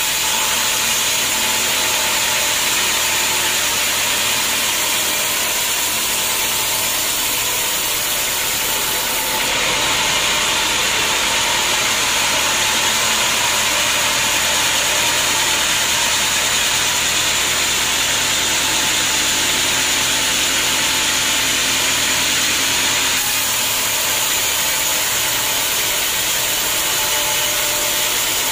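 Band sawmill running with its blade cutting lengthwise through a teak log: a steady machine drone under a hiss of sawing. The hiss grows stronger about a third of the way in and eases back a few seconds before the end.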